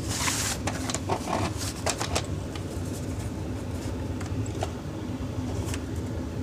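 A VHS cassette and its plastic case being handled: a brief swish, then a run of light plastic clicks and taps over the first couple of seconds, with a few more later. A steady low hum runs underneath.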